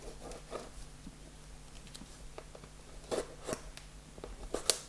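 Small cutting tool working at the seal of a cardboard Blu-ray collector's box, with short scraping strokes about half a second in and again around three seconds in, then a sharp click near the end.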